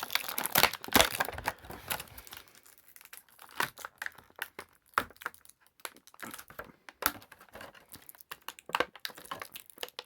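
Plastic action-figure packaging being handled: crinkling and crackling as the figure and its accessories are worked out of the plastic tray and bags. The crackles are dense for the first couple of seconds, then come in scattered bursts.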